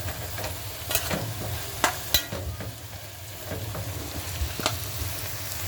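Seasoning vegetables and spinach frying in hot oil in a pot, sizzling steadily, while a spoon stirs them with a few sharp clicks against the pot.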